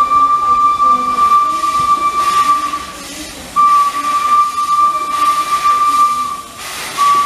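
Steam whistle of the heritage steam locomotive EIR 21 blowing long, steady, single-pitched blasts: one of about three seconds, a second of nearly three seconds after a short break, and a third starting near the end. Steam hisses in the breaks between blasts.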